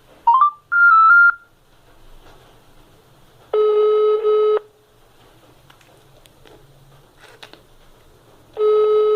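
A phone call ringing out, heard through the phone's loudspeaker: a few short electronic beeps stepping up in pitch at the start, then two one-second ringback tones about five seconds apart while the call waits to be answered.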